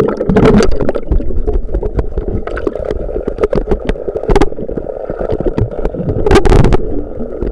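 Pool water splashing and sloshing right at the camera's microphone, with many sharp knocks and clicks and a bigger splash about six and a half seconds in.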